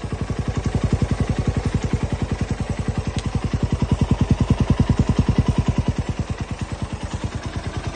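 Suzuki Raider 150 first-generation single-cylinder four-stroke, stock engine and carburettor, idling through an Organ Sports 'chicken pipe' aftermarket exhaust with a 51 mm elbow: a rapid, even beat of exhaust pulses that swells a little about four seconds in, then settles back.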